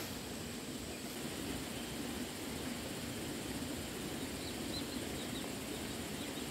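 Steady outdoor background noise, with a short run of faint, high bird chirps about four and a half seconds in.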